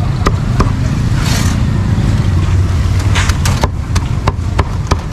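Cleaver chopping roast meat: a string of sharp, irregularly spaced knocks, with a brief hiss about a second in. Steady street-traffic rumble underneath.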